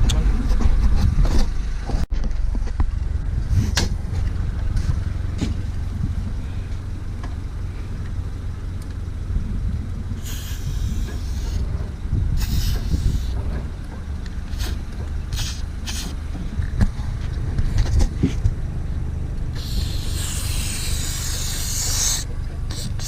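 An aerosol can of silicone lubricant hissing in short sprays, two brief ones about halfway through and a longer one of about two and a half seconds near the end. A steady low rumble lies beneath, with scattered clicks and knocks.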